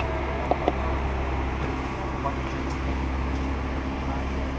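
Steady low mechanical hum, with two short light clicks about half a second in.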